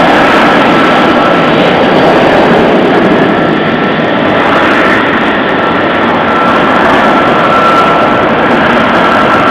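F-35B Lightning II's single Pratt & Whitney F135 turbofan running at taxi power: a loud, steady rushing jet noise with a high whine held on one pitch, the whine growing a little stronger near the end.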